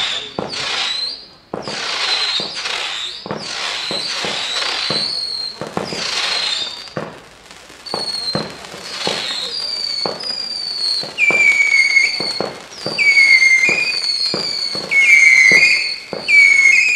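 Consumer firework battery firing shot after shot at about two a second. The first half is fizzing, crackling launches. From about halfway the shots carry short falling whistles, which grow louder and lower in pitch near the end.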